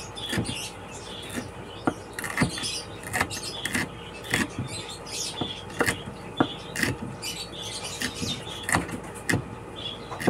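Kitchen knife chopping red chili peppers into small pieces on a wooden cutting board: uneven sharp taps of the blade on the wood, about two a second.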